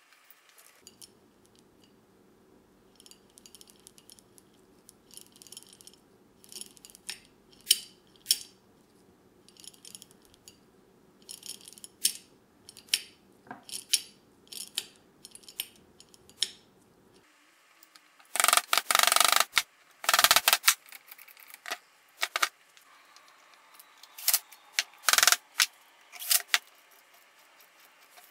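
Small metal engine parts clicking and clinking as they are handled and fitted by hand, in short separate clicks at first, then louder runs of metallic clattering a little past the middle and again near the end.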